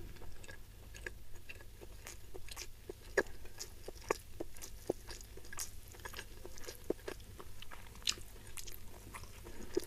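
Close-miked chewing of a mouthful of rice and spicy stir-fried salted fish: irregular soft clicks and smacks of the mouth, a few each second.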